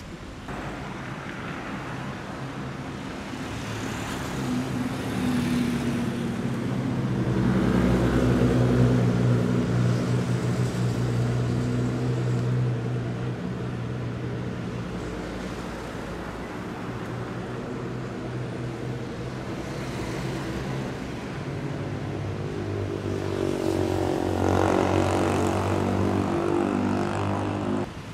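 Sports car engines passing in city traffic, their deep engine note building to a loud peak about eight seconds in, easing off, then rising again near the end.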